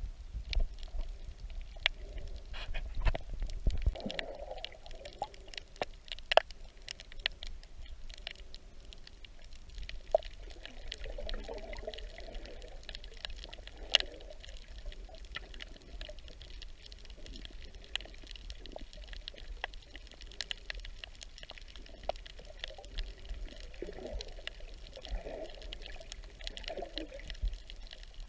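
Muffled underwater ambience picked up by a submerged camera: water moving around the microphone with a low rumble that is strongest in the first few seconds, and scattered sharp clicks and crackles throughout.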